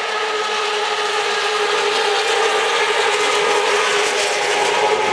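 A pack of racing motorcycles at speed on the circuit, their engines blending into one steady, many-toned drone that grows slowly louder as the bikes come closer.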